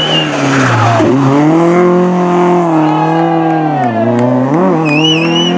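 Rally car engine at high revs passing close and pulling away, its note dipping and climbing back twice, with a brief tyre squeal near the end.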